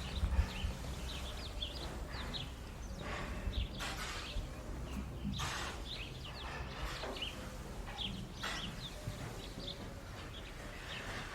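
Small birds chirping over and over inside a barn over a low steady rumble, with a few brief rustling swishes in between.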